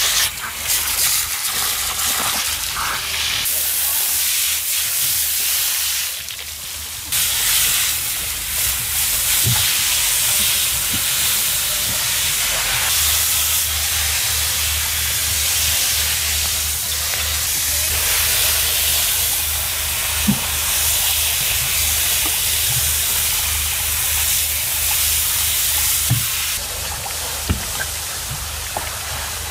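Deck-wash hose spraying a hard jet of water to wash mud off a freshly raised anchor: a steady, loud hiss that eases briefly a few seconds in. A low steady hum runs beneath it in the second half.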